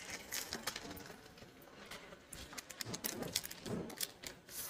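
Beaded jewellery being handled: faint, scattered light clicks and soft rustles.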